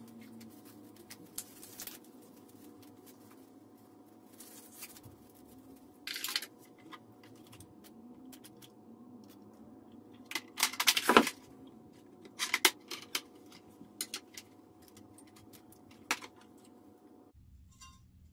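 Scattered clicks, taps and light scrapes as a glass dry plate and its film holder are handled, loudest in a quick clatter about halfway through. A faint steady hum runs underneath and stops suddenly near the end.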